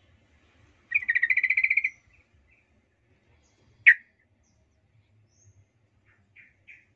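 Yellow-vented bulbul calling: a fast run of about a dozen repeated notes lasting about a second, a single sharp, loud note a couple of seconds later, and two faint short notes near the end.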